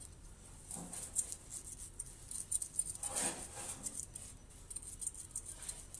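Knife blade scraping scales off a small whole fish in quick, short strokes. A brief louder sound comes about three seconds in.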